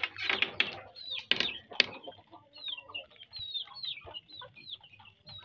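Chickens calling in a coop: a run of short, high, falling calls, about three a second, through the second half, after some rustling and a couple of sharp knocks in the first two seconds.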